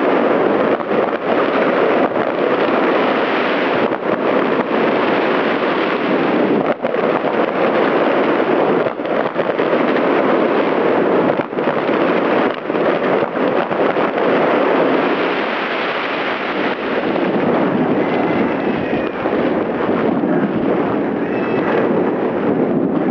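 Wind rushing over the microphone outdoors: a loud, steady rushing noise with a few brief dips, and faint whistling tones near the end.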